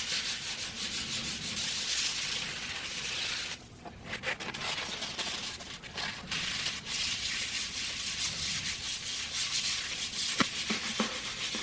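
Sandpaper rubbed by hand in quick back-and-forth strokes over cured spot putty filling curb rash on an aluminum wheel, smoothing the repair. The strokes break off briefly about three and a half seconds in, then resume.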